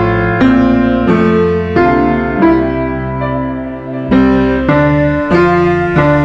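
Background music on a piano-like keyboard: a slow line of struck notes and chords, each left to ring and fade, over a sustained bass.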